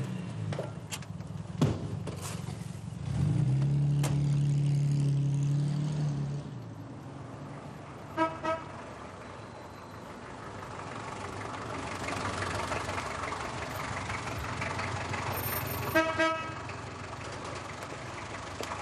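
A car door shuts with a thump. An engine starts and runs loudly for about three seconds, then settles. A car horn toots twice in quick succession about eight seconds in and once more about sixteen seconds in.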